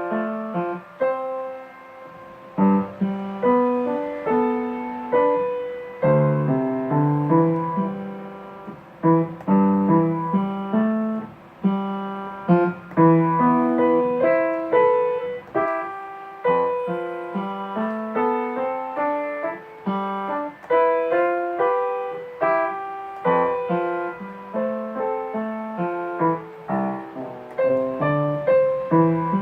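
Solo piano music: a melody of struck notes, each fading away, over lower chords, playing steadily throughout.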